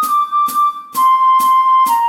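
Flute playing long held notes in a slow descending line, stepping down one note about a second in, over a steady click about twice a second.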